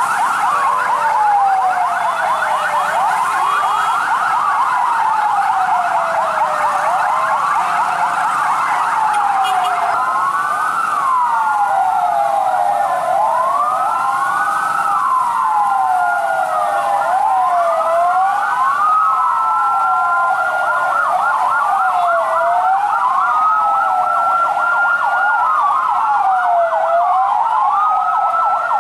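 Several emergency-vehicle sirens sounding at once: slow wails rising and falling out of step with each other, over a fast yelp.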